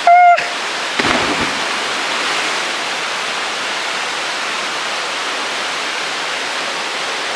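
Waterfall rushing steadily into its pool. A short high-pitched call sounds right at the start, and a brief thump comes about a second in.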